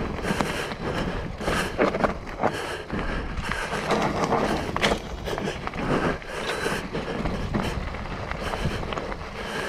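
Mountain bike rolling fast down a rough dirt trail: tyres crunching over dirt and rocks, with frequent sharp knocks and rattles from the bike as it hits bumps.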